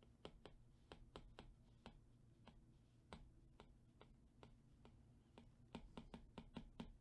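Apple Pencil Pro tip tapping lightly on the iPad Pro's glass screen while writing by hand: faint, irregular ticks that come faster near the end.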